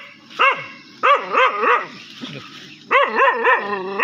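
Dog barking in short, high-pitched, rapid barks: a run of three or four about a second in and another run near the end.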